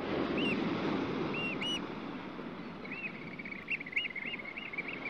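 Beach ambience: short, high bird calls over a rushing wash of surf that swells at the start, with the calls turning into a rapid chattering run from about three seconds in.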